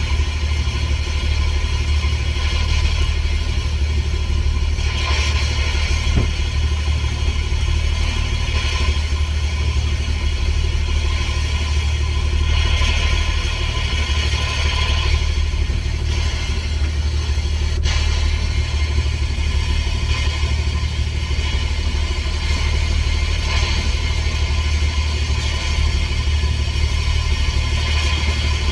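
Boat engine running steadily with a constant low rumble, under a hiss of wind and rushing water that swells now and then.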